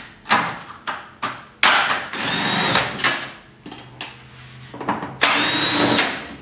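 Cordless drill with a Torx 25 bit backing screws out of a pickup tailgate: two runs of about a second each, the first about a second and a half in and the second near the end, with a few short clicks between.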